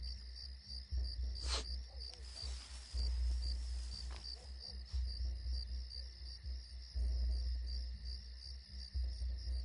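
Crickets chirping steadily, about three pulses a second, over a low rumble, with a sharp click about a second and a half in and some rustling after it.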